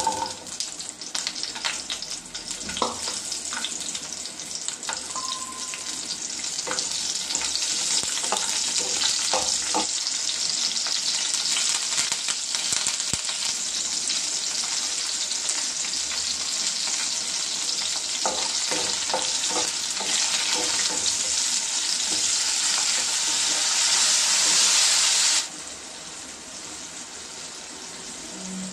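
Small sambar onions sizzling and frying in hot oil in a non-stick kadai, with a spoon clinking and scraping against the pan now and then as they are stirred. The sizzle starts loud as the onions drop into the oil and cuts off abruptly near the end.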